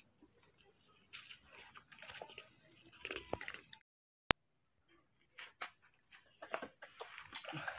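Faint, scattered crunching and rustling of dry leaves and gravel underfoot. About four seconds in there is a short gap of dead silence, ending in one sharp click.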